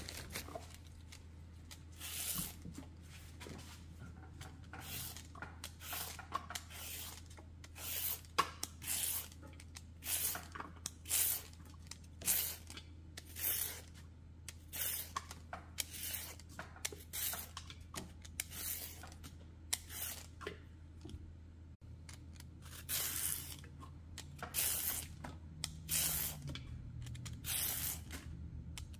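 Vegetable peeler scraping strips off a raw carrot: short rasping strokes, about one a second, in runs with brief pauses, over a faint steady low hum.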